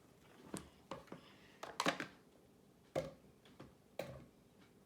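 Irregular sharp clicks and knocks of kitchen utensils and a plastic food-chopper bowl being handled while onion is prepared, about eight in all, with the loudest pair just before the middle.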